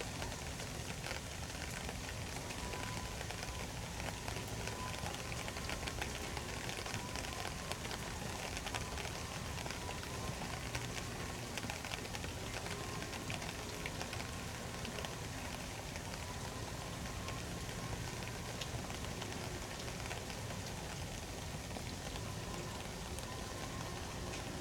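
Heavy rain falling steadily, with many individual drops ticking sharply on hard surfaces. A faint wavering tone sits in the background.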